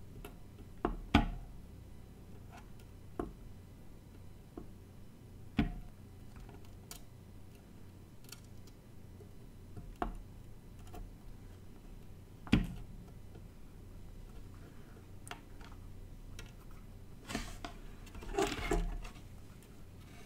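Handling noises from a circuit board and soldering tools on a wooden desk: scattered sharp clicks and taps, the loudest about a second in, near six seconds and near twelve and a half seconds, then a longer clatter near the end as the board is turned over.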